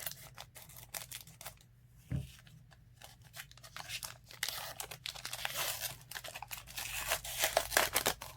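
Trading-card pack wrapper crinkling and tearing as cards are handled: a few light clicks at first, then dense crinkling from about four seconds in.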